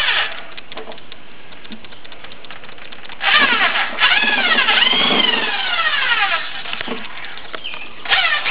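Power drill driving a corn kernel-cutting bit down a cob. The motor whine falls in pitch as the bit loads up, once about three seconds in and again near the end. In between is a steadier scratchy rasp.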